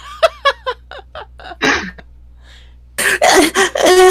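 A person sneezing loudly about three seconds in, one noisy burst straight into a second with voice in it, after a run of short breathy, giggle-like sounds.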